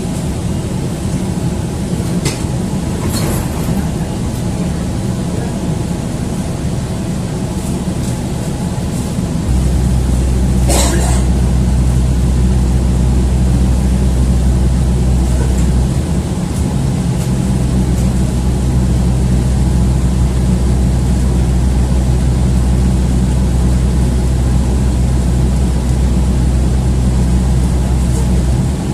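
City bus engine running, heard from inside the bus as a steady low drone. About a third of the way in it grows louder and heavier, with a couple of brief rattles along the way.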